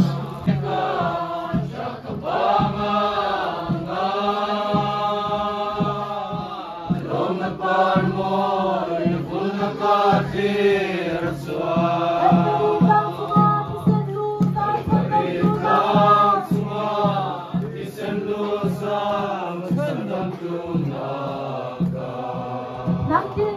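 A roomful of men and women singing together, a slow song of long held notes.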